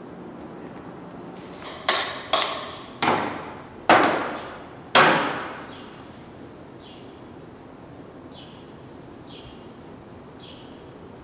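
Five sharp knocks on a hard object, each ringing briefly, spread over about three seconds. After them come faint, short scraping sounds about once a second.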